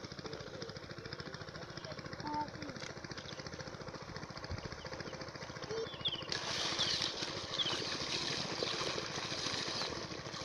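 A steady, evenly beating small engine runs throughout. About six seconds in, a stream of water starts splashing into a bamboo basket full of live snakehead and catfish, becoming the loudest sound.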